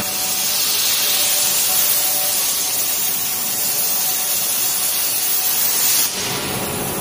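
CNC gantry cutting machine's torch cutting through thick steel plate: a loud, steady hiss of the cutting jet that stops abruptly about six seconds in.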